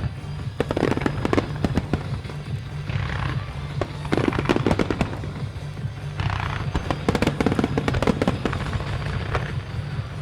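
Aerial firework shells bursting in rapid clusters with crackling, in several volleys, over music playing from loudspeakers.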